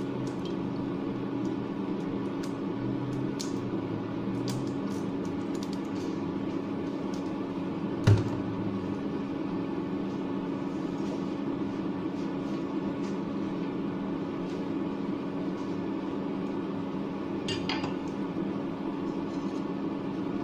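Induction cooktop running under a wok, a steady electrical hum with fan noise, while the oil heats. Scattered faint ticks, and one sharp knock about eight seconds in.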